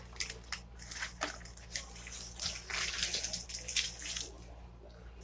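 Eating sounds during a fast-food meal: a series of short clicks and wet, hissy scrapes and slurps, over a steady low hum.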